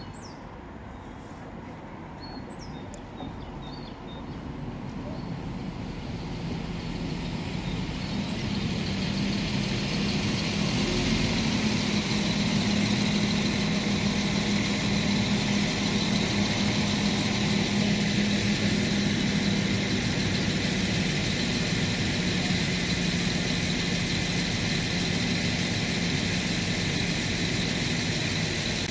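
Northern Ireland Railways Class 4000 diesel multiple unit pulling into the platform, its engine hum and running noise growing louder over about eight seconds, then running steadily as it stands. A few faint bird chirps at the start.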